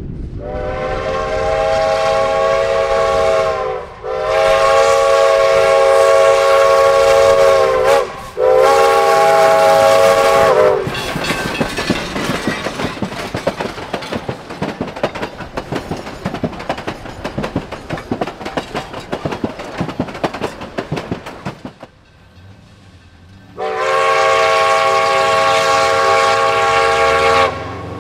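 Narrow-gauge steam locomotive's whistle blowing three blasts, two long and a shorter third, then the wheels of the passing passenger coaches clicking and clattering over the rail joints. After a sudden cut, the whistle blows one more long blast.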